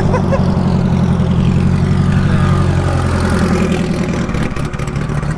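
Car engine running at a steady, even speed, easing off about three and a half seconds in and picking up again near the end.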